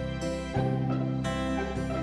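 Background music: plucked acoustic guitar notes over sustained bass tones.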